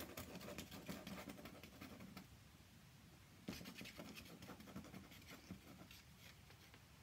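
Faint scratchy strokes of a fine brush laying Indian ink on paper: a spell of strokes in the first couple of seconds, a quieter gap, then more strokes from about three and a half seconds in until about six.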